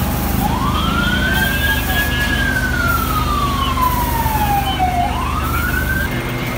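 Fire truck siren wailing: one slow rise, a long fall, then a second rise that is cut off about six seconds in. A steady low engine hum runs underneath.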